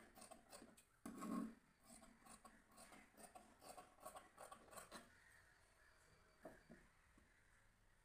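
Tailoring scissors cutting thin cotton fabric: a faint run of short snips for about five seconds, thinning to a few scattered ones. A crow caws once about a second in.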